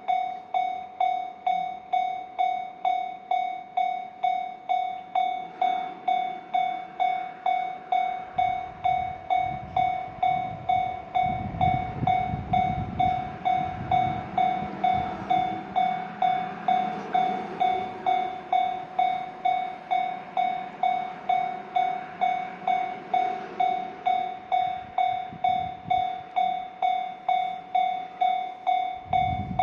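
Japanese level-crossing warning bell ringing its steady, evenly repeated 'kan-kan' ding, while a train rumbles past through the crossing for several seconds in the middle, with more rumble near the end.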